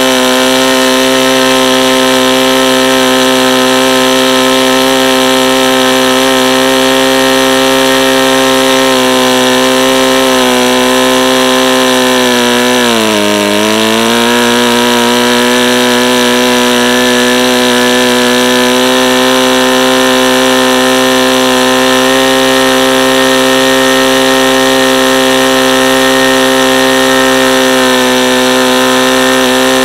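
Saito FA-90TS four-stroke twin-cylinder glow engine with a 14x6 wood prop running steadily at full throttle, around 7,400 to 7,900 rpm. About 13 seconds in, the pitch briefly sags and then picks back up.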